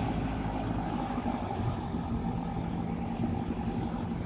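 A 4x4 vehicle's engine running steadily while driving, with a low rumble and road noise.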